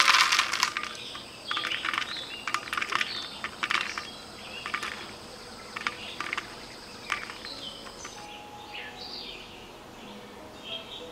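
Small stones poured from a bowl into a clay pot, a dense clatter at the start, then scattered knocks and clicks as more stones and then jackfruit seeds drop onto the stones to roast. A steady high insect drone runs until about eight seconds in, and birds chirp near the end.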